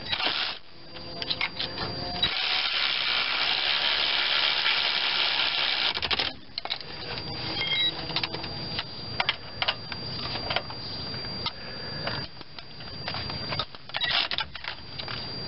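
A cordless power tool with a socket runs for about four seconds, driving in a brake caliper mounting bolt, then stops. Scattered clicks and metallic taps of tools being handled follow.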